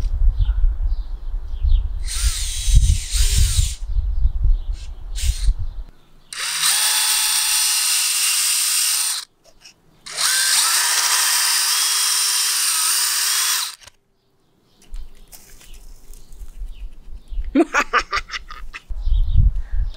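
DeWalt cordless drill with an auger bit boring into lawn soil, running steadily twice for about three seconds each, its motor pitch sagging slightly under load in the second run. Before that, a low rumble with a few knocks.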